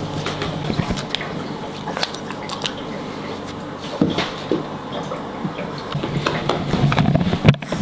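Scattered light clicks, knocks and rustles as a French bulldog puppy plays right up against a handheld camera, with a sharper knock near the end.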